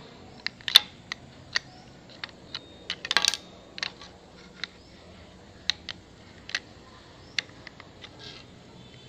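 Irregular sharp clicks and taps of small hard objects handled close to the microphone, with a short crackling rustle about three seconds in.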